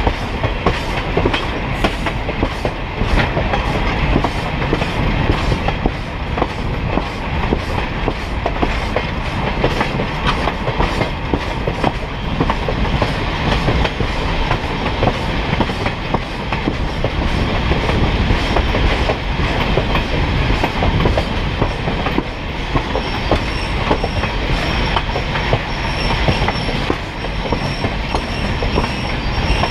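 Passenger train rolling along the track, heard from on board: a steady rumble of wheels on the rails with irregular clicking over the rail joints. About two-thirds of the way through, a thin, high wheel squeal sets in and comes and goes.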